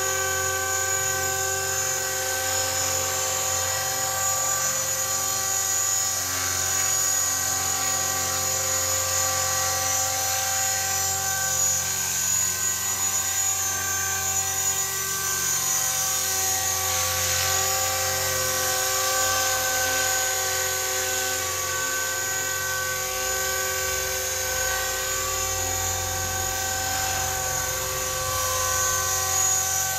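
T-Rex 450 electric RC helicopter in an Agusta 109 scale body hovering and flying low: a steady whine from its brushless motor and gears over the whirr of the main rotor, holding a nearly constant pitch.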